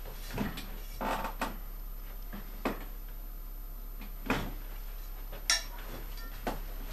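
About seven irregular light knocks and clicks as painting tools are handled at an easel. The sharpest comes about five and a half seconds in.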